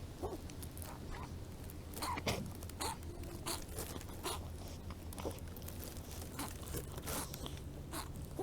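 Kittens chewing dry cat kibble, a run of irregular crisp crunches and clicks.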